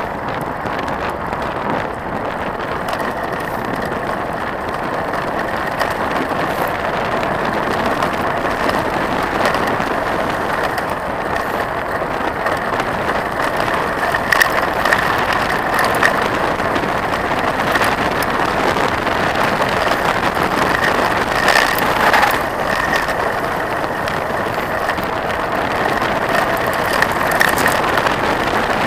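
Trek 4900 mountain bike rolling fast down a gravel road: a steady rumble of knobby tyres on loose gravel, with scattered clicks and rattles from the bike and stones.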